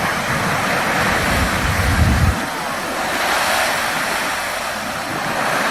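Loud, steady rush of surging water, with wind buffeting the microphone in a low rumble for about a second near the middle.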